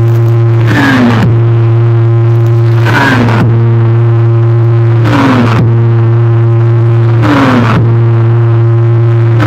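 A truck-mounted automotive sound system (a wall of speakers) playing at extreme volume: one deep bass tone held throughout, with a short falling sweep repeating about every two seconds. The bass is loud enough to make the ground shake.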